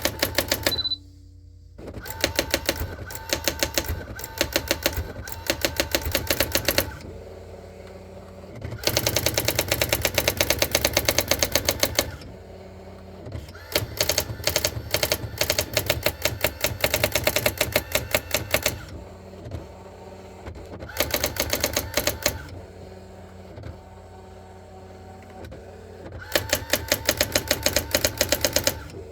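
Brother AX-400 electric daisy-wheel typewriter printing its built-in demonstration text on its own. Rapid runs of printing strikes come in bursts of a few seconds, with pauses between them in which a quieter mechanical hum continues.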